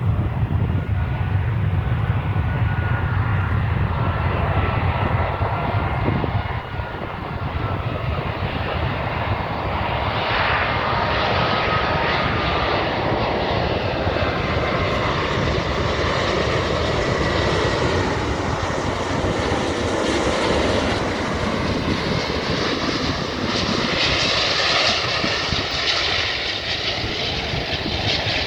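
Jet engines of a British Airways Airbus A380, four Rolls-Royce Trent 900 turbofans, running in a steady roar with a faint whine that wavers in pitch. The deep rumble eases about six seconds in, and a hissing roar grows stronger later on.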